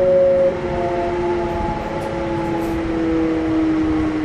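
Onboard running sound of a Kintetsu 1021 series electric train with a Hitachi GTO-VVVF inverter: the inverter and traction motors whine in several tones that slowly fall in pitch as the train slows, over a low rumble of wheels on rail.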